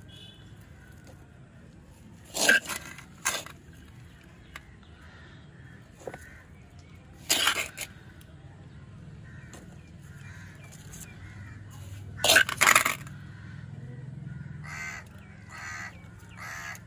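Crows cawing in short, harsh calls: a couple about two and a half seconds in, one about seven seconds in, and a quick run of several about twelve seconds in.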